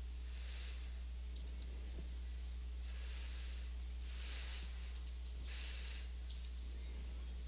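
A few faint computer mouse clicks over a steady low electrical hum, with soft swells of hiss coming and going every second or so.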